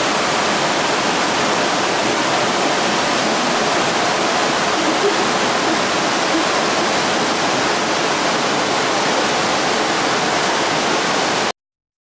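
Fast-flowing mountain river rushing beneath a footbridge, mixed with heavy rain: a loud, steady wash of water noise that cuts off suddenly near the end.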